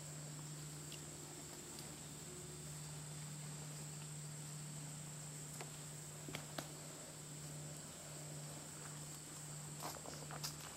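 Steady, faint, high-pitched insect chirring, like crickets in the woods. A few light clicks and taps come about six seconds in and again near the end, as gear is handled in a metal climbing treestand.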